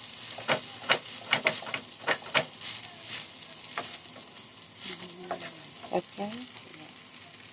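Rice with vegetables and minced pork sizzling in a nonstick wok while a wooden spatula stirs it, with sharp scrapes and taps of the spatula against the pan clustered in the first couple of seconds.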